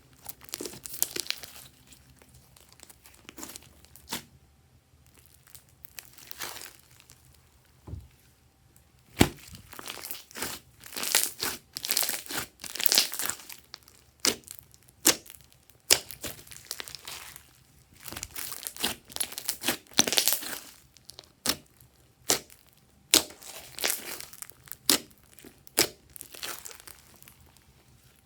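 Glossy slime being squished, stretched and folded by hand, giving irregular sharp pops and clicks with short sticky hisses. It is sparse for the first few seconds, then comes in quick clusters.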